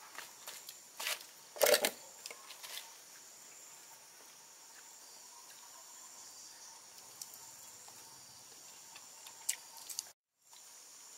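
Faint outdoor ambience with a steady high-pitched hum, broken a second or two in by a few sharp knocks and rustles of handling at a table, the loudest a short thump. The sound cuts out for a moment near the end.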